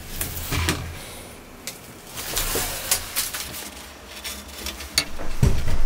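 Tape pulled off a roll and pressed onto a plywood board, then a thin metal sheet handled and set down on it, with scratchy rustles and clicks and a low thump near the end.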